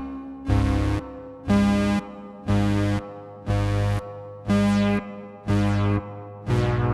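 Behringer TD-3-MO analogue bass synthesizer playing a slow line of bright, buzzy notes, about one a second, each followed by a fading tail. On the last few notes a resonant filter sweep falls in pitch.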